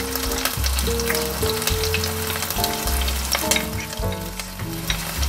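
Boiled baby octopus and bell pepper sizzling and crackling in a hot frying pan as the octopus is scraped in from a plate with a wooden spatula. Background music with low, stepped notes plays underneath.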